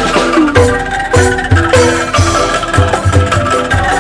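Bamboo calung ensemble playing an upbeat tune: many short struck notes from mallets on tuned bamboo tubes over a steady bass-drum beat.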